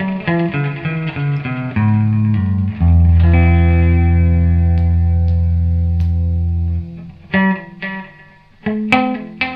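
Electric guitar played through a tube tape echo unit and a tube amplifier, with some distortion. A run of picked notes leads into one long low note held from about three seconds in, which fades out near seven seconds. A few more notes and sharp clicks follow near the end.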